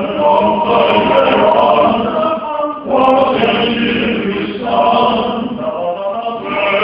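A small ensemble of men's voices singing together in harmony, in sustained phrases broken by short pauses about three and four and a half seconds in.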